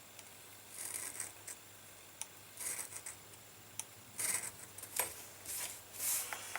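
Leather being worked with hand tools at a bench: about six short, sharp scraping strokes, with a few light clicks between them.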